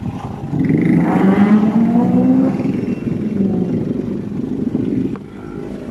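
Motorcycle riding along a road: engine running with wind rushing over the phone's microphone, the engine note rising as it speeds up about half a second in, then holding steady.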